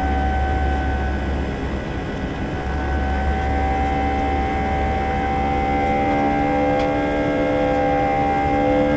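Airbus A320 jet engine heard from inside the cabin at a window seat beside it: a steady drone with several steady whining tones over a low rumble. About two thirds of the way through, more tones join in.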